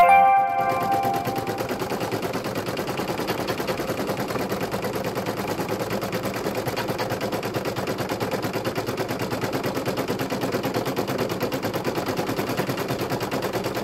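Embroidery machine stitching at speed: a rapid, even clatter of needle strokes. A short ringing tone sounds at the very start and fades within about a second and a half.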